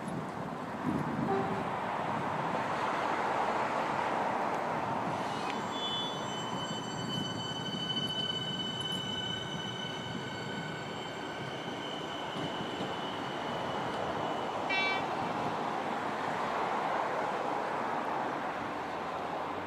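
Siemens Nexas electric suburban train pulling out and running away along the track: motor and wheel-on-rail noise, with a steady high-pitched whine held for several seconds in the middle that stops about fifteen seconds in.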